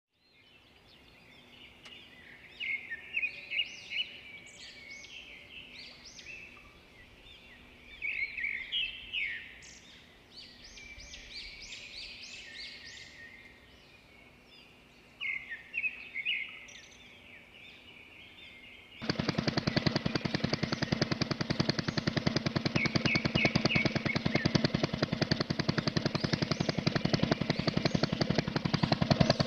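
Birds chirping against a quiet background. About two-thirds of the way through, a homemade miniature engine built from PVC starts suddenly and keeps running with a rapid, even rattle of firing strokes.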